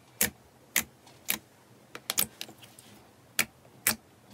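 Glossy blue slime popping under pressing fingers: its trapped air pockets burst in about ten sharp clicks, irregularly spaced, with a quick cluster about two seconds in.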